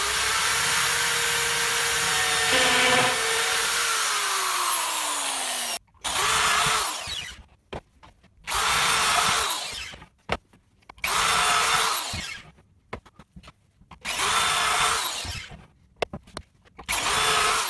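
Power drill with a stepped pocket-hole bit boring pocket holes through a Kreg jig into a birch plywood panel. One long run of about six seconds whose whine sinks as the drill slows near its end, then five short runs of about a second each, a couple of seconds apart.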